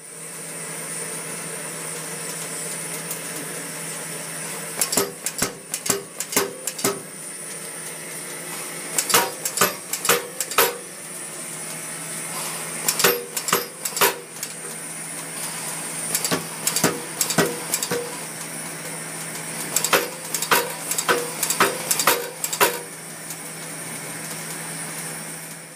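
A low-recoil air hammer strikes a red-hot steel bar on its die in five bursts of several quick, sharp metallic blows. A steady hum runs in the background.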